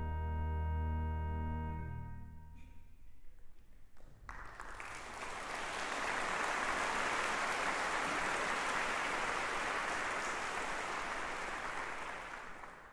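Concert pipe organ holding a full final chord over a deep bass note, released about two seconds in and dying away in the hall's reverberation. Audience applause starts about four seconds in and continues, thinning out near the end.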